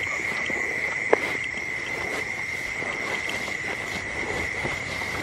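Steady high-pitched trill of night insects such as crickets, with one short falling squeak about a second in.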